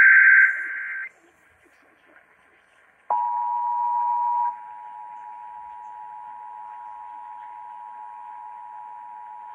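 Emergency Alert System tones on broadcast radio: the last SAME header data burst, a harsh warbling digital burst that stops about a second in. After a short gap, the two-tone EAS attention signal starts about three seconds in; it is loud for a second or so, then holds steady at a lower level.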